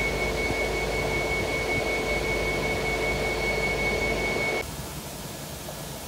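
Crawler crane's engine running steadily, with a constant high whine over a low rumble. About three-quarters of the way through it cuts off abruptly, and a quieter steady hiss is left.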